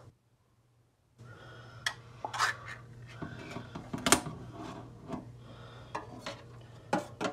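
Metal food can being worked open: sharp metallic clinks and taps with scraping and rubbing, starting about a second in.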